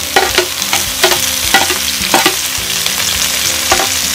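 Tatsoi greens sizzling in hot oil in a wok, with repeated scrapes and knocks of a metal wok ladle against the pan at irregular intervals as they are stir-fried.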